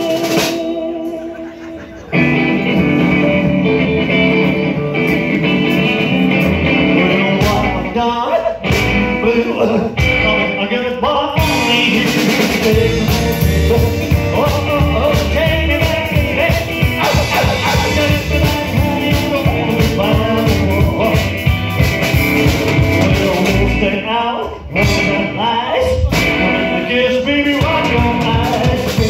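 Live rock and roll band playing upright bass, electric guitar and drum kit. The sound thins out briefly at the start, and the full band comes in about two seconds in.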